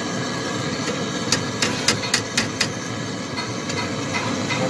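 Gas brazing torch flame hissing steadily as it heats a refrigerant pipe joint on a deep freezer's compressor to loosen it. A quick run of about six sharp clicks comes a little over a second in.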